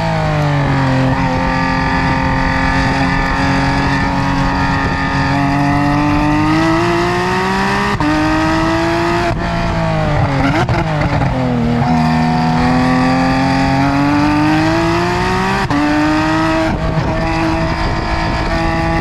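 Modified Porsche 911 GT3 RS's 4.0-litre naturally aspirated flat-six with Cup-car-based headers, heard at the exhaust: engine pitch climbs slowly through two pulls under power. Sudden pitch steps at gear changes come about eight and sixteen seconds in, with a quick up-and-down rev blip between them.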